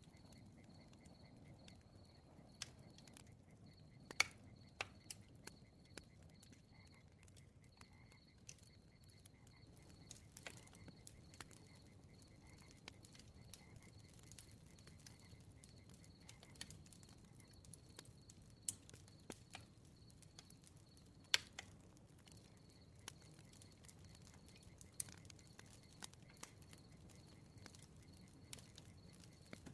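Crackling wood fire: scattered sharp pops and snaps over a soft low rumble, the loudest about four seconds in and again a little past twenty seconds. A high, evenly pulsing chirp runs behind it, pausing a couple of times.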